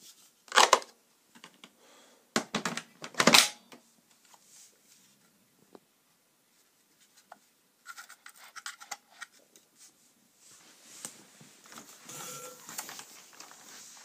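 Hard plastic vacuum cleaner parts being handled and fitted together: several sharp clacks in the first few seconds, then lighter clicking and a stretch of scraping near the end. The motor is not running.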